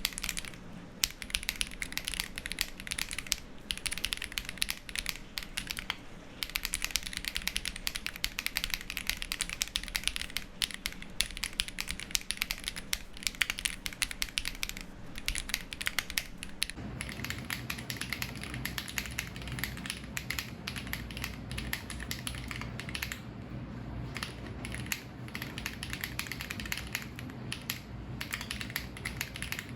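Continuous fast typing on a Ginkgo65 custom mechanical keyboard with Zaku switches and GMK keycaps: a dense, irregular stream of keystroke clacks.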